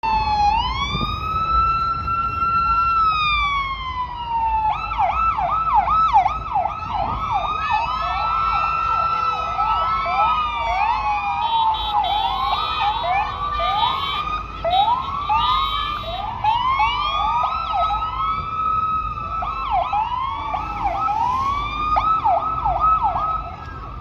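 Police car sirens: a single slow wail at first, then several sirens yelping at once from about five seconds in, their fast rising and falling sweeps overlapping. Traffic rumbles underneath.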